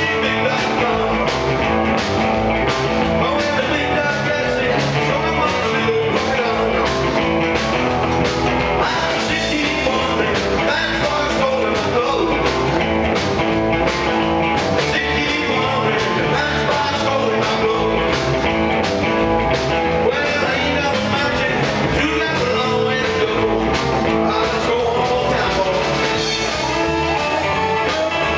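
Live rock and roll band playing: a male singer over hollow-body electric guitars and a drum kit, loud and without a break.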